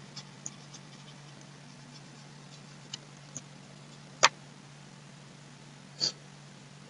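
A few soft clicks from the pen input device writing on the screen: faint ticks, then a sharper click about four seconds in and another about six seconds in, the last as a full stop is added. Under them, a faint steady low hum.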